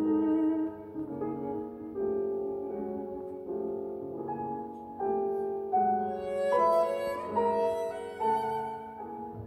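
Classical music with cello and piano, played back through an EL3N single-ended valve amplifier and loudspeaker. Sustained bowed notes move from pitch to pitch under piano accompaniment, brightest and fullest about six to eight seconds in.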